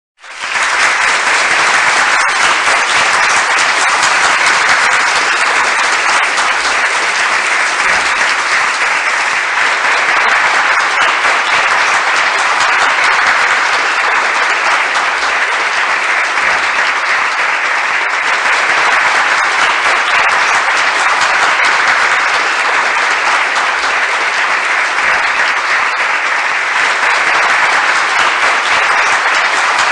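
Large crowd applauding: a dense, steady wash of many hands clapping, fading in quickly at the start and holding at an even level.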